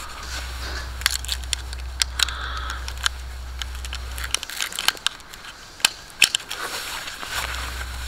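Handling .223 Rem rifle cartridges taken from their box: irregular sharp clicks and clinks with some rustle, the loudest pair about six seconds in.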